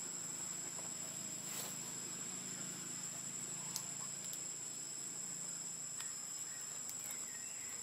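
Insects calling in one steady, unbroken high-pitched tone, with a few faint scattered ticks and rustles.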